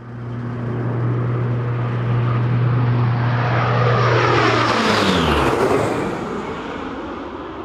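C-130H Hercules turboprop aircraft with four Allison T56 engines flying past low, its propeller drone building, then dropping sharply in pitch about five seconds in as it passes overhead and going away.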